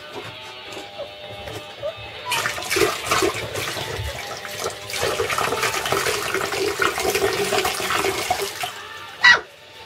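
A loud, even rushing noise with a crackly texture, starting about two seconds in and stopping shortly before the end, followed by one brief sharp sound.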